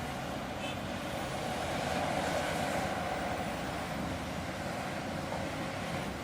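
Heavy diesel earthmoving machinery running steadily at a mine site, swelling slightly about two seconds in.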